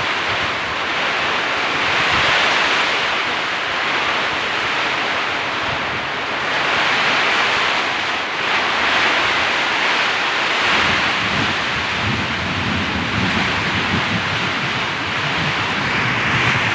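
Heavy rain pouring down in a steady, loud hiss that swells and eases every few seconds, with low rumbling buffets of wind on the microphone in the second half.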